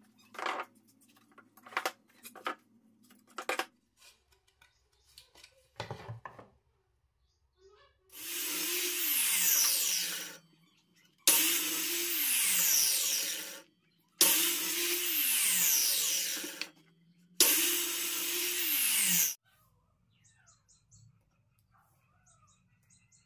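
Circular saw on a sliding sled making four short cuts, each starting abruptly and ending with the motor pitch falling as the blade winds down. A few light taps and knocks come before the cuts.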